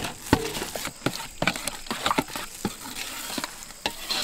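Metal spoon stirring mayonnaise and chilli garlic sauce in a stainless steel bowl: irregular scrapes and clinks against the bowl, a few each second.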